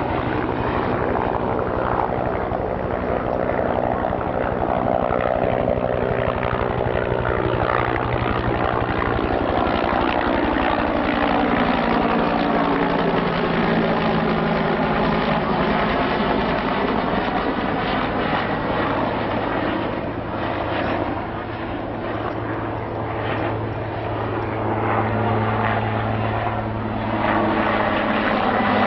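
Firefighting helicopters carrying slung water buckets flying overhead, with steady engine and rotor noise. The pitch slides as they pass, and the sound fades briefly past the middle before rising again.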